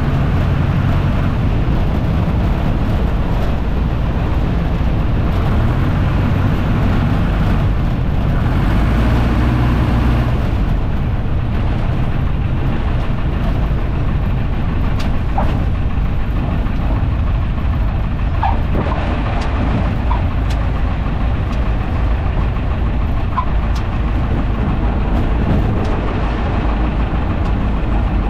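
Piper J3 Cub's 65-horsepower engine and propeller running steadily, heard from inside the cockpit with wind noise, through a wheel landing and roll-out on the runway. A few faint clicks come in the second half.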